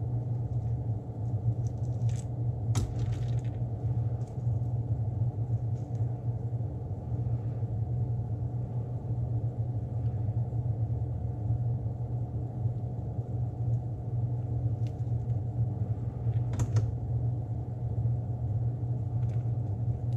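Steady low motor drone from the workshop, with a few brief crinkles of plastic mesh and wrap being peeled off a painted lure, about two seconds in and again near the end.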